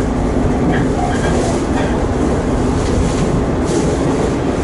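Electric commuter train running between stations, heard from inside the carriage: a steady rumble of wheels on rail with a constant low hum.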